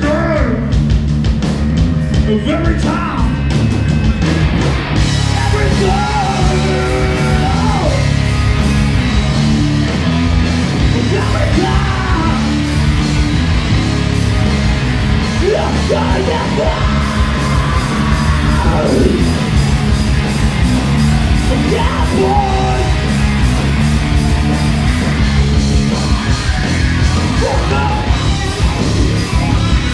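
Live heavy rock band playing loud through club amplifiers: electric guitars, bass and drums, with a singer yelling drawn-out vocal lines into the microphone every few seconds. Cymbals come in about five seconds in.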